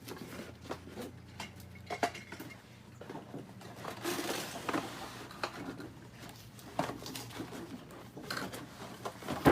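Scattered light clicks and knocks, with a stretch of rustling about four seconds in and a few faint, brief voice sounds; a sharper knock comes right at the end.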